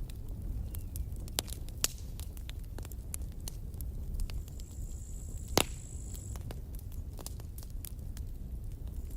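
Campfire burning, wood crackling with irregular snaps and pops over a low steady rumble, one sharp pop louder than the rest about halfway through.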